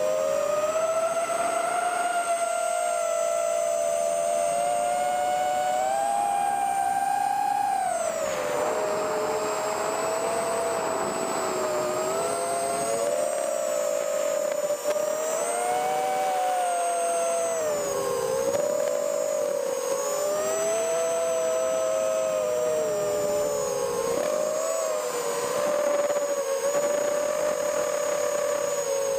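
The brushless motors and 3-inch props of a toothpick FPV quadcopter whining in flight, heard from the onboard camera. Several close tones, one from each motor, rise and fall together with the throttle. About eight seconds in the pitch drops sharply, followed by a rush of air noise.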